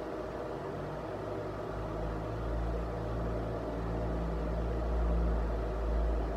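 Steady low mechanical hum and rumble, growing stronger about two seconds in.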